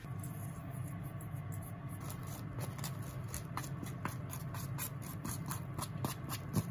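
Wooden chopsticks scraping sticky natto out of a plastic tub and clicking against a stainless steel bowl of pasta: a run of light, irregular clicks and taps, with a sharper knock near the end. A steady low hum sits behind them.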